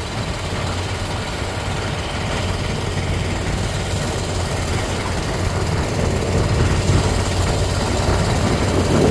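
Motorboat engine running steadily, heard on board as a low, even hum with a noisy wash over it, growing slightly louder toward the end.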